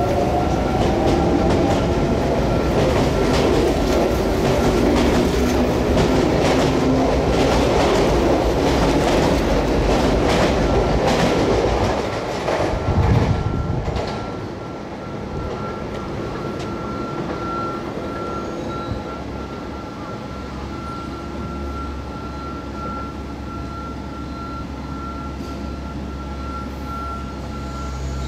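A Sotetsu electric commuter train runs past the station. At first its motor whine rises in pitch, and the wheels clack steadily over the rail joints. The train sound drops away about 13 to 14 seconds in, leaving a quieter steady low hum.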